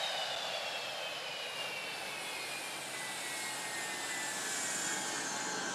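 Eurofighter Typhoon's EJ200 jet engines running with a steady rush of noise and a high whine that falls slowly in pitch.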